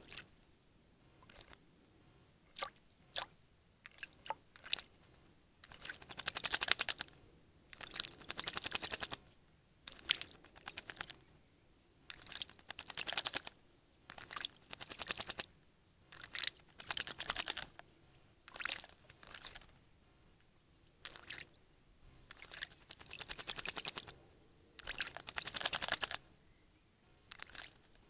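Male Eurasian blackbird bathing, fluttering its wings in shallow water and sending up bouts of splashing. A few short splashes come first, then about a dozen fluttering splash bouts of about a second each, one every one to two seconds.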